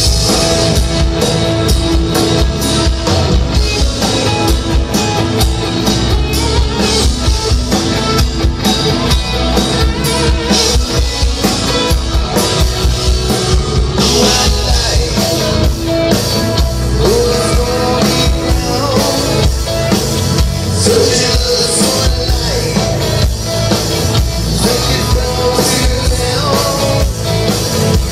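Rock band playing live: drum kit keeping a steady beat under electric guitar, bass guitar and keyboard.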